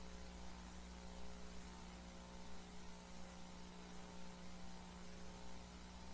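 Steady electrical mains hum under a faint even hiss.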